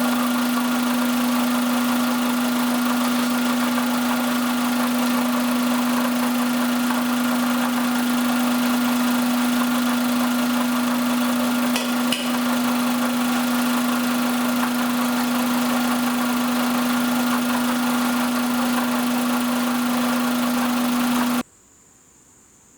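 Suzuki Alto Van (HA23V) engine running steadily at idle, with a strong constant whine over the running noise: the abnormal engine noise being tracked down. There is a brief click about twelve seconds in, and the sound cuts off suddenly near the end.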